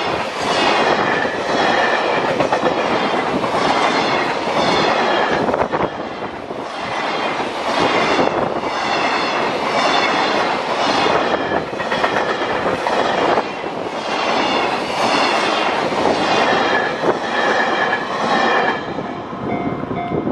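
Freight train of container flatcars passing at close range: a loud, continuous rumble of wheels on rails with a rhythmic clatter as the wagons' wheelsets cross the rail joints, about once a second.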